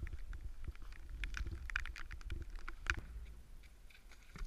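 Wind buffeting the microphone, with scattered light taps of rain striking the camera.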